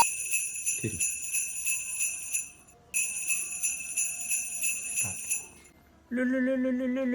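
Bells jingling in an even rhythm, about three shakes a second, in two runs with a short break between them. Near the end a steady, slightly wavering low tone starts.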